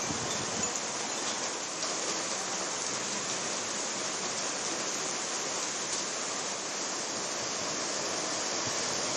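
Heavy rain falling steadily, an even rushing noise with no breaks.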